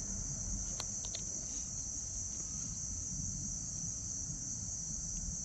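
Background insects trilling steadily in one unbroken high-pitched drone, over a low rumble, with a few faint clicks about a second in.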